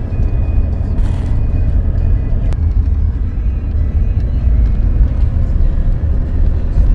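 Toyota four-wheel drive travelling along a dirt track, heard from inside the cabin: a steady, heavy low rumble of engine and tyres. The recording is overloaded and distorted.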